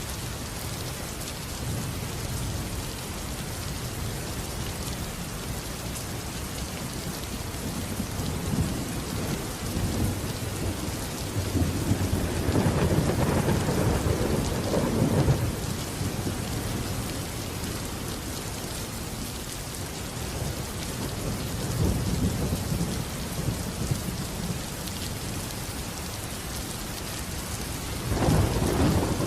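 Steady heavy rain falling, with rolling thunder rumbling in low swells; the longest, loudest roll comes about midway, a shorter one later, and another begins near the end.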